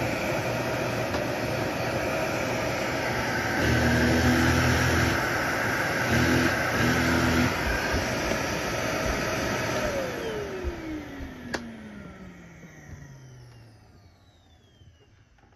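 Maytag Savvy upright vacuum cleaner running with a steady whine; twice a deeper, louder hum comes in for a second or so. About ten seconds in it is switched off and the motor winds down, its whine falling in pitch over a few seconds as the sound fades away.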